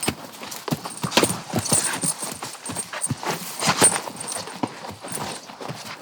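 Horse walking, its hooves clip-clopping in an uneven run of knocks, with the metal fittings of its lead rope jingling faintly at times.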